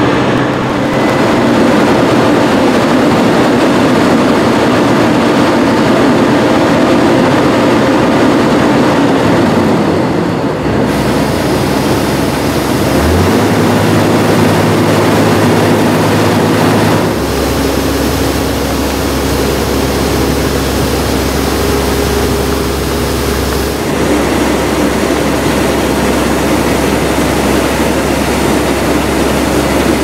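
Vintage combine harvester's diesel engine and threshing machinery running steadily at work in wheat. The sound changes abruptly about a third of the way in and again just past halfway, with a steady low hum in the later part.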